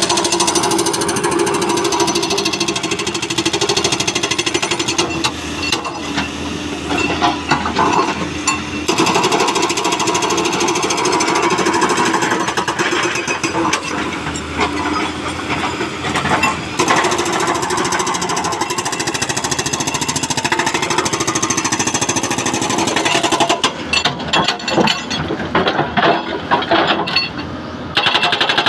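Soosan SB81 hydraulic breaker on a Doosan DX225LCA excavator hammering rock in rapid, continuous blows, with a few brief pauses, over the excavator's diesel engine running.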